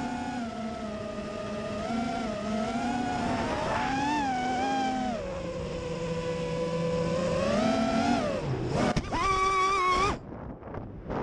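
FPV racing quadcopter's brushless motors and propellers whining, the pitch rising and falling with the throttle. Near the end the whine cuts off suddenly and a few knocks and scrapes follow as the quad crashes into the grass.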